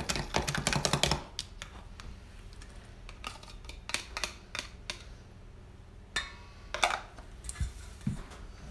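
A fork beating a raw egg in a small plastic bowl: a fast run of light clicks for about the first second. After that come scattered taps and a couple of short scrapes of the fork against the bowls as the egg is poured into a steel mixing bowl.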